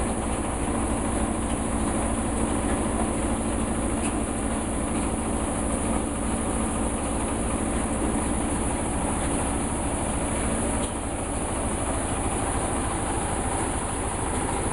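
Wood crusher machine running steadily, with an even low pulsing under a constant hum.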